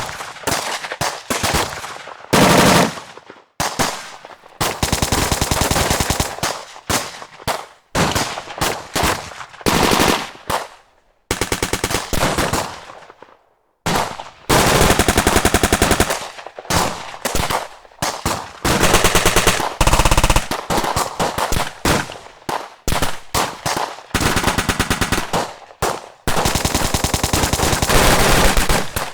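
Gunfire sound effects: bursts of rapid automatic machine-gun fire, one after another with short pauses between, and a longer lull about halfway through.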